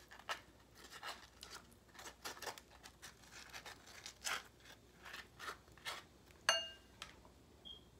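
Metal avocado scoop scraping the flesh out of avocado skins, a quiet run of short, irregular scrapes and squishes a few times a second. Near the end the tool clinks once against the glass bowl with a brief ring.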